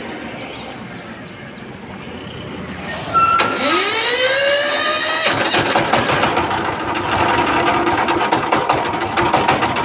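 A 1110 single-cylinder diesel engine of the Changfa power-tiller type is self-started. About three seconds in the starter spins up with a rising whine, and about two seconds later the engine catches and runs on with a rapid, steady diesel knock. It is the first start after the timing gears were set without the factory marks.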